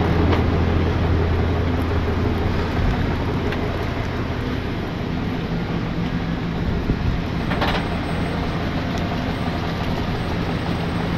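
Jerr-Dan tow truck's engine running steadily at low speed as it pulls a wheel-lifted SUV around a tight turn: a constant low hum. A short click sounds about eight seconds in.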